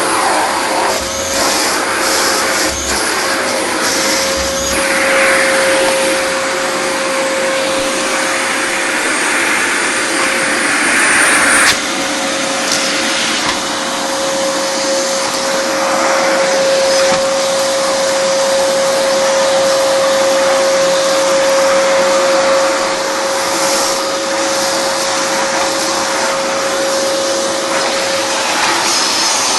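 Vacuum cleaner running with a steady whine, the rush of air swelling and falling as it is worked, dropping sharply about twelve seconds in.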